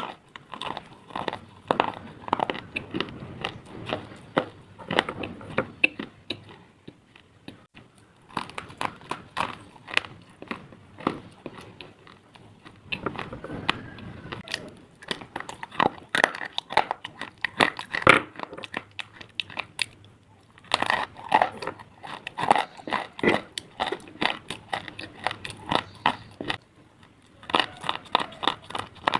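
Pieces of slate being bitten and chewed close up: dense, sharp, gritty crunches coming in bursts, broken by a few short pauses.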